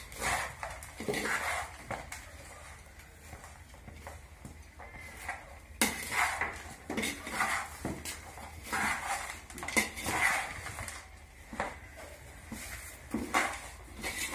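Metal utensils knocking and scraping against a cooking pot, in irregular clatters about every half second to two seconds, some with a short metallic ring.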